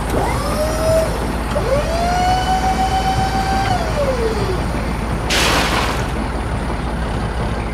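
Komatsu PC12UU-2 mini excavator running with a steady low engine rumble, and a hydraulic whine that rises, holds and falls twice as the arm works, the second one longer, about two seconds. About five seconds in, a short clatter of rocks dropped from the bucket.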